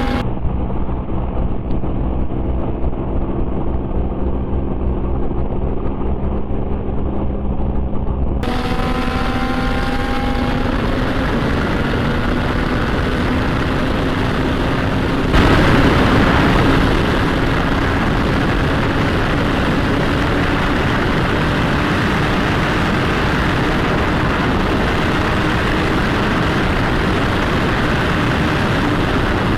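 Motorcycle exhaust running steadily while riding, its pitch creeping slowly upward, under rushing wind noise on the microphone. The wind becomes much louder about halfway through and then stays steady.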